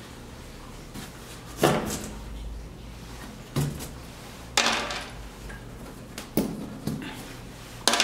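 Irregular knocks and clunks, about six in all, with a short rasping rush about halfway through; the first knock, near two seconds in, is the loudest.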